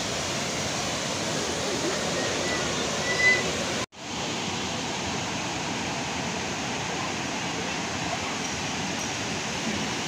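Steady rushing of a waterfall pouring into a pool. A brief high-pitched tone stands out about three seconds in, and the sound cuts out for an instant just before four seconds.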